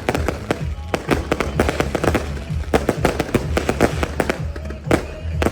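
Fireworks display: a rapid, irregular string of firework bangs and crackles, several each second, over a low rumble.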